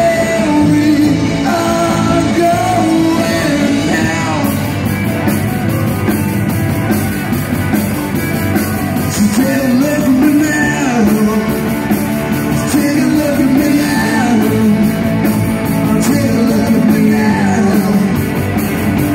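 Live rock band playing: electric guitar and drum kit with a singer, amplified and loud. The cymbals come in more strongly about four seconds in.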